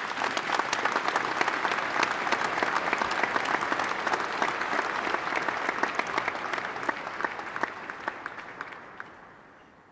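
Audience applause, dense and steady, fading out over the last few seconds.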